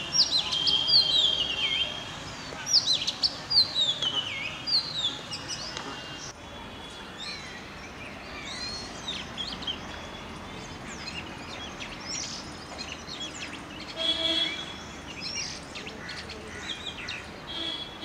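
Oriental magpie robin singing: a varied run of clear whistled notes and falling slurs, loudest in the first six seconds, then fainter after a break about six seconds in.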